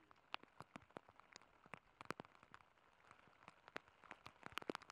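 Rain: scattered raindrops ticking irregularly close to the microphone over a faint hiss of falling rain, with a quick run of louder drops near the end.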